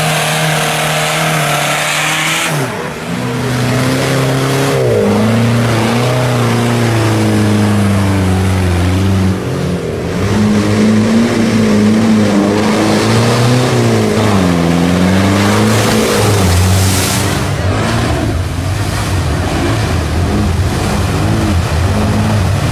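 Off-road 4x4 engines revving hard, their pitch swinging up and down again and again as the trucks churn through deep mud.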